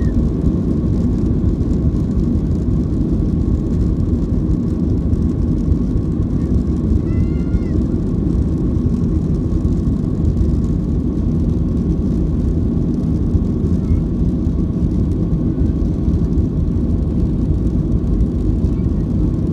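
Cabin noise of a Boeing 737-700 taxiing, its CFM56 engines running steadily at low power: a constant low rumble with a steady thin whine over it.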